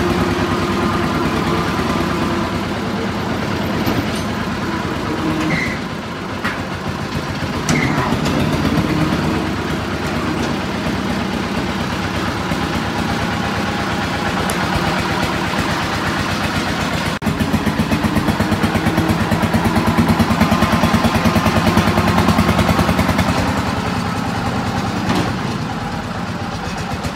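An engine running steadily at idle, a rapid even chugging. It briefly drops out about two-thirds of the way through and then runs louder for several seconds.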